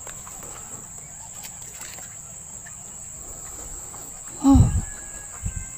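Insects chirring steadily in the background. About four and a half seconds in, a sudden loud burst: a low thump with a short voice-like cry, while a hooked snakehead thrashes at the surface, followed by a smaller thump a second later.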